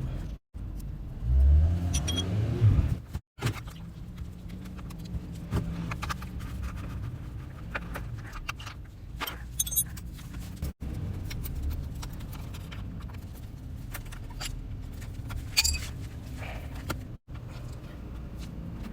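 Honda CBR1000RR inline-four engine running, with a louder surge about 1.5 seconds in, and scattered metallic clicks and clinks over it. This is the abnormal engine noise being traced. The sound drops out abruptly several times at cuts.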